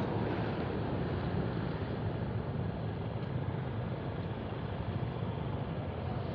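Steady motorcycle engine hum mixed with surrounding road traffic noise, with no sudden events.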